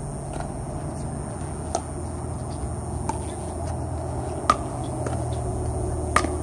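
Pickleball paddles striking a hard plastic ball: several sharp, scattered pops, the loudest about halfway through and another near the end, over a steady low background hum.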